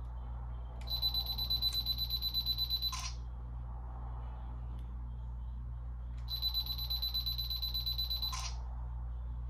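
Camera self-timer counting down with a rapid run of high beeps for about two seconds, ending in a shutter click. This happens twice, the second run starting about six seconds in.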